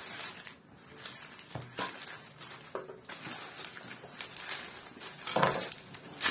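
Kitchen knife cutting through soft dough and knocking on a plastic cutting board, with the dough being handled: a string of irregular light taps and knocks, the loudest about five and a half seconds in.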